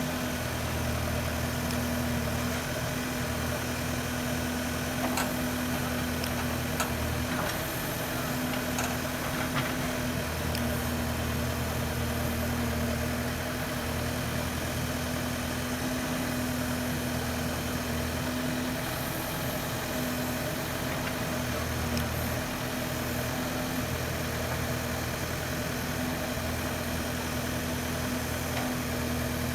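Case 770FX backhoe loader's diesel engine running steadily, its low hum swelling and easing every few seconds as the load changes, with a few faint clicks and knocks.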